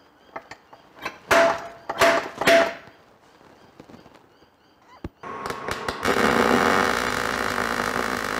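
Three short loud bursts about a second in, then, about five seconds in, a MIG welder's arc starts on steel and runs steadily to the end.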